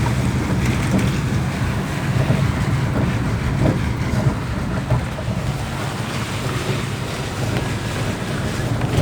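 Car driving through heavy rain, heard from inside: a steady low engine hum under a continuous wash of water and tyre noise on the wet road.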